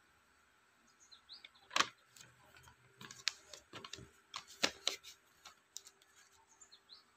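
Paper instruction sheets and plastic packaging being handled: a series of sharp crinkles and taps, loudest about two seconds in and again near five seconds. A few faint, short high chirps come near the start and near the end.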